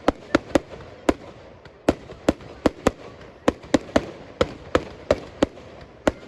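Professional fireworks display going off in quick succession: about fifteen sharp bangs, irregularly spaced at roughly two to three a second.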